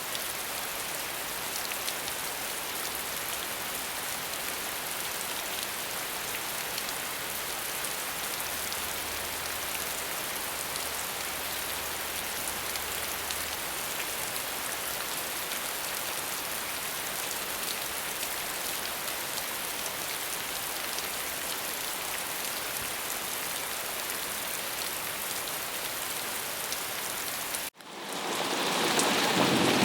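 Steady rain falling, an even hiss of drops. About 28 seconds in it cuts out abruptly, then returns louder and heavier.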